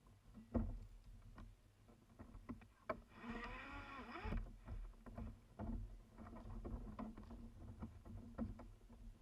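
Paddling a kayak: scattered knocks and clunks of the paddle and gear against the hull over a low rumble of water and movement. About three seconds in, a pitched sound lasting about a second slides down and back up.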